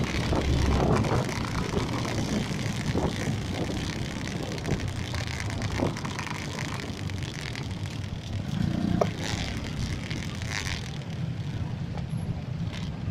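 Road traffic noise: a steady low rumble of engines and tyres from cars, motorcycles and tricycles close by, with wind and road noise from riding among them.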